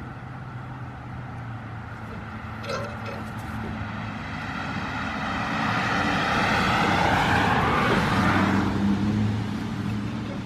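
A vehicle passing by on the road, swelling to its loudest about seven to eight seconds in and then fading, over a steady low hum.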